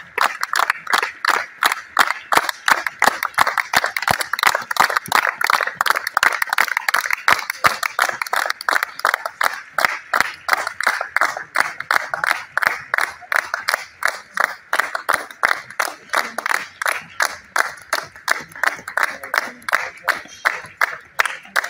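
A group of people clapping in unison in a steady, even rhythm of about four claps a second, cheering on runners.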